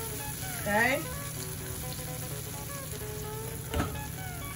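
Battered cauliflower deep-frying in hot oil in a cast-iron skillet, a steady sizzle, with a single short tap a little before the end.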